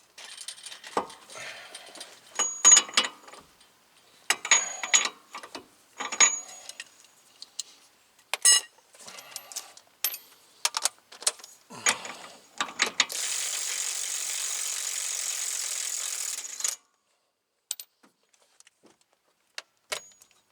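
Clanks of metal tools and ratchet clicks from a socket worked on a car's rear axle nut. Near the middle comes a steady hiss lasting about three and a half seconds that cuts off suddenly.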